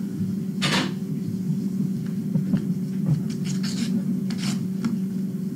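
Paper rustling as mail is handled, and short scratchy strokes of a pen writing on paper on a clipboard, over a steady low hum. The longest rustle comes just under a second in, and a cluster of short scratches comes a little past the middle.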